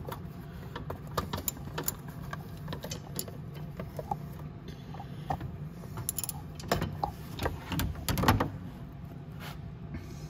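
Metal hand tools clinking and rattling as a longer socket extension is picked out and handled: scattered sharp clicks, with a louder cluster about two-thirds of the way through, over a steady low hum.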